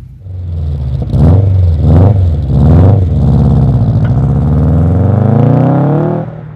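Subaru WRX STI's turbocharged flat-four, breathing through a 3-inch turbo-back sports-cat resonated exhaust, revved three times in quick succession, then pulling away with one long rising note as the car accelerates off. The sound cuts off suddenly near the end.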